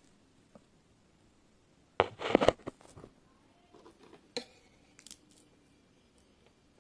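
Handling noise from sweets being picked off a plastic tray: a short, loud clatter about two seconds in, then a few light clicks and taps.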